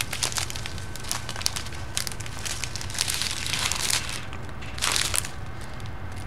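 Strip of small plastic packets of diamond-painting drills crinkling and crackling irregularly as it is handled and folded, with a short lull and then a louder crinkle about five seconds in.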